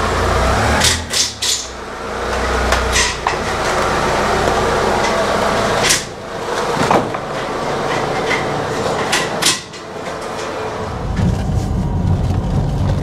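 Workshop clatter with several sharp knocks and clanks, a cluster about a second in and others near three, six and nine and a half seconds. From about eleven seconds the Alfa Romeo 145's engine runs steadily, heard from inside the cabin, breathing through its newly fitted exhaust.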